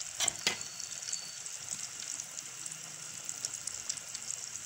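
Besan-coated chicken pieces frying in hot ghee: a steady sizzle full of small crackles, with a couple of louder pops near the start, just after the pieces have gone in.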